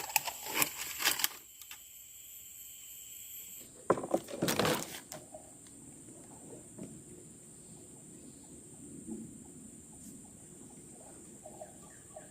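Steady high-pitched drone of forest insects, with a cluster of sharp knocks and handling noises in the first second or so and another loud clatter about four seconds in.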